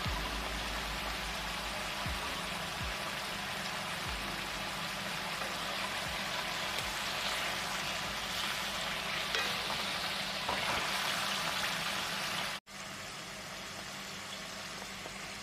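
Sliced pork liver and garlic sizzling in a stainless steel wok as they are stir-fried with a metal spatula, a steady frying hiss. The sound cuts out for a moment about twelve seconds in.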